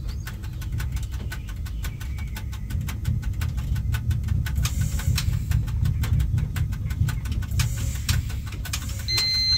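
Cab of a ChS4 electric locomotive: a steady low rumble with rapid, regular clicking running through it, and a short high electronic beep near the end.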